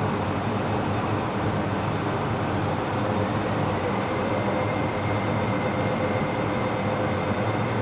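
MTR East Rail Line electric multiple-unit train pulling out of the platform, giving a steady rumble of wheels on rail. A faint high motor whine comes in partway through as it gathers speed.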